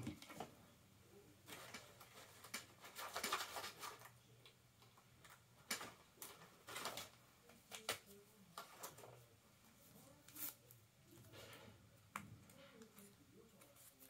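Hands moving and rustling stiff fabric and a strap on a table, in short scattered bursts with a few light clicks and taps.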